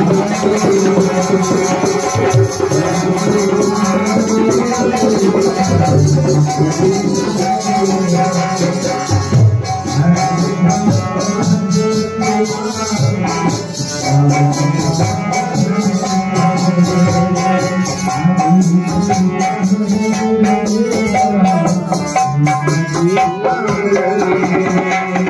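Devotional song with a male voice, kartal jingles and a dholak drum.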